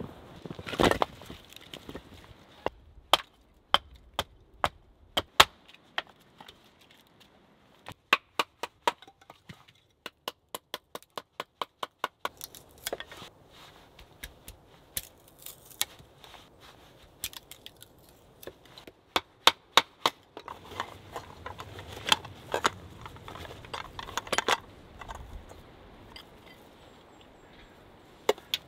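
A string of sharp wooden knocks and clicks from hand work on firewood: split logs knocking together, a knife shaving a stick, with a quick even run of about five clicks a second partway through, and a couple of flint-on-steel strikes near the end.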